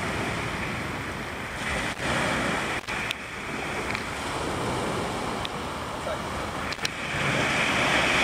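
Surf washing on a beach, with wind buffeting the microphone; the wash swells louder near the end.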